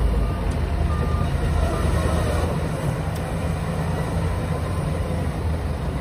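Heavy dump truck's diesel engine running steadily while its bed is raised to tip soil, with two short faint beeps near the start.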